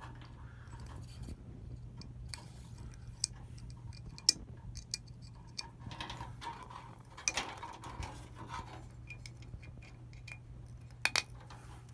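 Small metal clicks, taps and rustling as wire terminals are handled and fastened onto a fuel sending unit's terminals, over a steady low hum. The sharpest click comes about four seconds in, with two more near the end.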